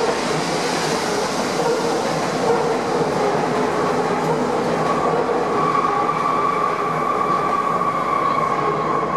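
Madrid Metro train running through the station at speed: a steady rush and rumble, with a high whine that grows stronger about halfway through.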